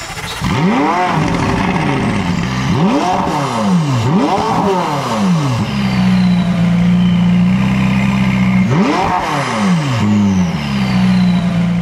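McLaren 675LT Spider's twin-turbo V8 revving: four quick throttle blips, each rising and falling in pitch, then the engine held at a steady pitch, with one more blip about nine seconds in.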